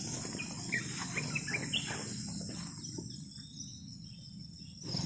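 Insects trilling in a steady, high-pitched chorus, with a few short chirps in the first two seconds and a low rumble of wind or handling underneath.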